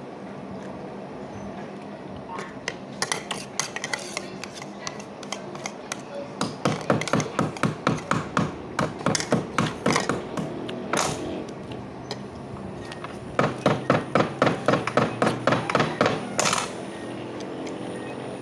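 Crunching and cracking of cooked crab shell while eating: two bouts of rapid, sharp crunches, about three to four a second, the first running for several seconds and the second starting about halfway through, over a steady background hum.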